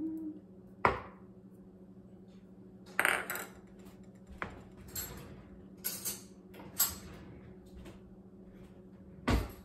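Scattered clinks and knocks of a measuring spoon and a metal utensil against a small can of tomato paste and the slow cooker: a sharp click about a second in, a cluster around three seconds, a few lighter clinks, and a heavier knock near the end. A steady low hum runs underneath.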